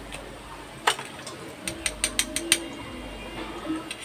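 A metal spoon clinking against stainless-steel bowls as salt is scooped and tapped off: one sharp click about a second in, then a quick run of about seven clicks.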